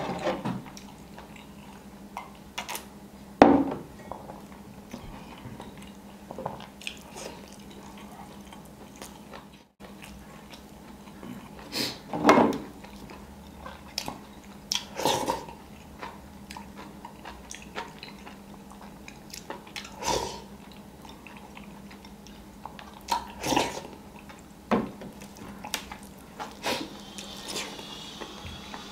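Close-up eating sounds of biryani eaten by hand: chewing, with a handful of short clicks and clinks of fingers and dishes against the tray and a glass bowl, over a faint steady hum.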